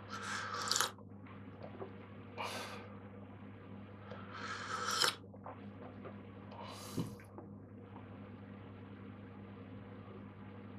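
Someone slurping sips of tea from a ceramic mug: four noisy sips, the third the longest and loudest, then a soft knock about seven seconds in as the mug is set down on the table. A steady low hum runs underneath.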